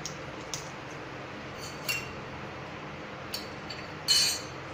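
Mustard and cumin seeds spluttering in hot oil in a kadhai: a few sharp pops over a steady hiss, with a louder ringing click about four seconds in. The popping seeds are the sign that the oil is hot enough for tempering.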